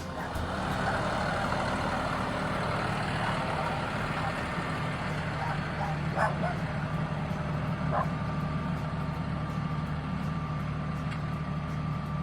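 An engine running steadily at one speed, with a couple of short dog yips about six and eight seconds in.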